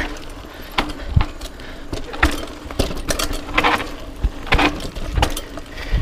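Off-road vehicle engine running at a steady low speed, with irregular knocks and rattles, about one or two a second, as it crawls over rough trail.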